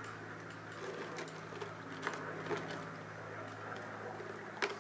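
A few light clicks and taps of small carburetor parts being picked up and handled on a workbench, the sharpest near the end, over a steady low hum.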